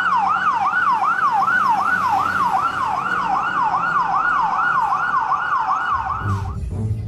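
Fire truck siren in a fast yelp, its pitch sweeping up and down about three times a second. It cuts off near the end as music with a bass beat comes in.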